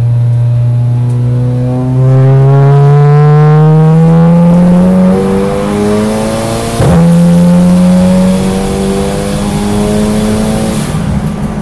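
Racing saloon car's engine pulling hard, its pitch climbing steadily for about five seconds before a change of note. About seven seconds in there is a sudden sharp noise, after which the engine holds a high, fairly steady pitch.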